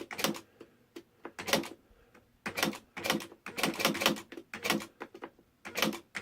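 Smith Corona Mark I electronic typewriter typing keys, a mix of capitals and lowercase letters, as an irregular run of sharp mechanical strikes with short pauses between them.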